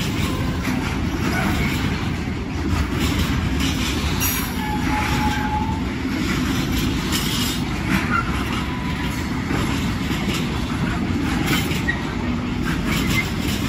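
Freight train of pocket wagons carrying truck semi-trailers rolling past: a steady rumble of wheels on rail with light clatter over the track, and brief wheel squeals now and then, the clearest about five seconds in.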